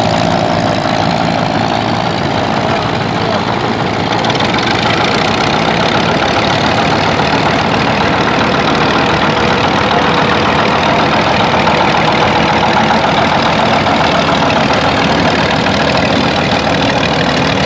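Antique tractor engines running steadily: first a 1964 Ferguson 35 pulling a plow, then, after a change about four seconds in, a 1937 McCormick-Deering WK-40.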